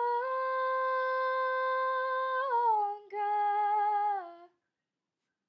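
A young female voice humming two long held notes. The first lasts about two and a half seconds and bends at its end. After a short breath, a lower, shorter note slides down as it fades out.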